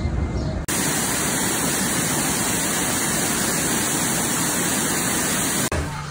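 Water rushing over a weir spillway: a loud, steady rush that starts suddenly about a second in and cuts off shortly before the end.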